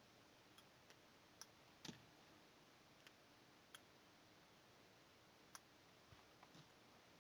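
Near silence with about ten faint, scattered clicks and ticks, the loudest about two seconds in, from tinning a cable's wire ends with a soldering iron and solder.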